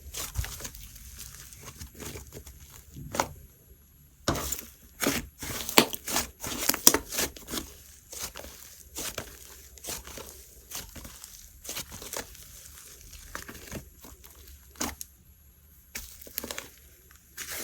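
Simbly Slime slime being squeezed, stretched and pressed by hand, giving a run of sticky crackling clicks and pops. The clicks come thickest a few seconds in, then thin out to scattered pops.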